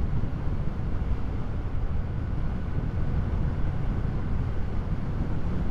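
Wind and engine noise on a 2023 Yamaha MT-07 ridden at highway speed of about 70–80 mph, picked up by the rider's lavalier mic as a steady, fluttering low rumble.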